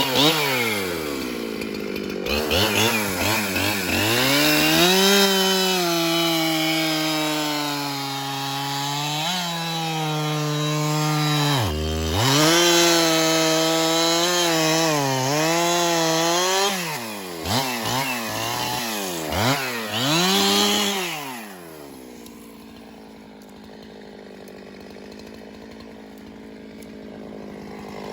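Chainsaw at full throttle cutting through very hard, long-dead gum. The engine note dips and recovers again and again as the chain loads up in the cut. A few seconds before the end it drops back to a quieter idle.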